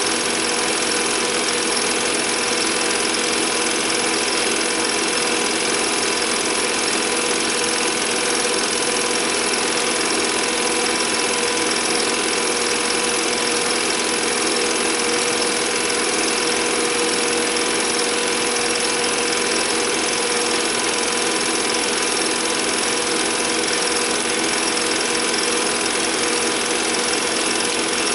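Home-movie film projector running: its motor and film-pulling mechanism make a steady, fast mechanical clatter with a hum, unchanging throughout.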